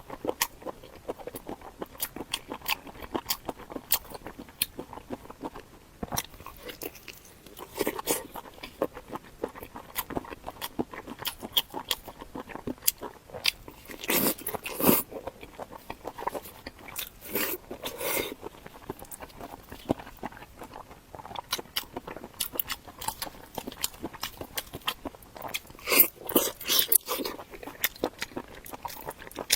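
Close-miked biting and crunchy chewing of a pig's ear, a dense run of small wet clicks with louder crunching bites about halfway through and again near the end.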